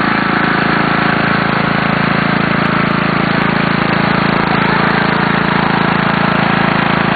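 Riding lawn tractor's engine running steadily as the tractor moves slowly across the grass.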